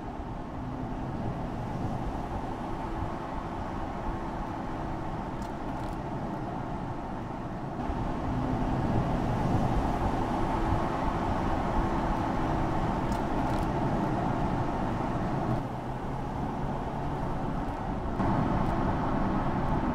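Mercedes-AMG GLC 43 Coupé driving on a road: its 3.0-litre biturbo V6 runs under a steady wash of tyre and road noise. The sound gets louder about eight seconds in and again near the end.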